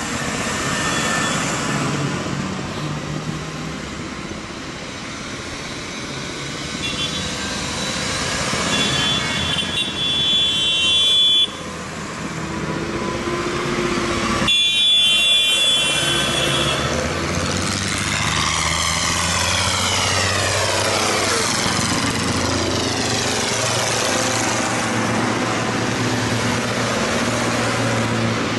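Tractor diesel engines running as tractors drive past, with a sweeping rush as one passes close. Brief high-pitched tones come twice near the middle.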